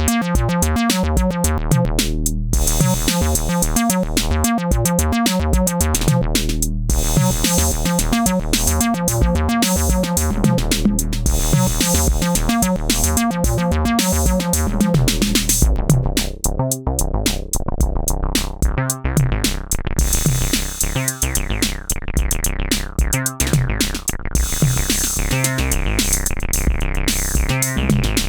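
Electronic bass line from a synthesizer over a drum-machine beat, playing a repeating rhythmic pattern. About halfway through the texture changes to a smoother, sparser bass sound with regular breaks.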